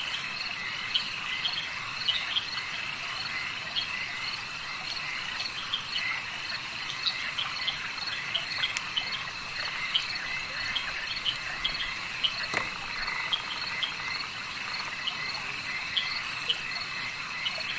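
Night chorus of crickets and frogs: a steady high chirring with short chirps repeating throughout.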